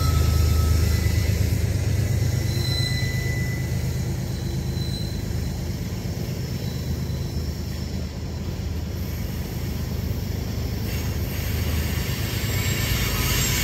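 Freight train cars rolling past with a steady low rumble and wheel noise, with a few faint, brief wheel squeals in the first five seconds.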